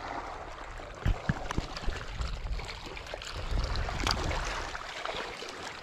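Reservoir water splashing and trickling close by, with a few light knocks between about one and two seconds in.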